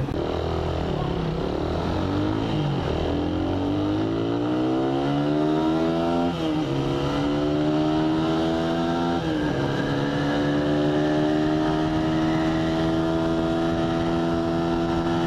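Suzuki Raider 150R motorcycle's single-cylinder engine accelerating up through the gears: the pitch climbs, drops at each of three shifts about two and a half, six and nine seconds in, then holds nearly steady at cruising speed.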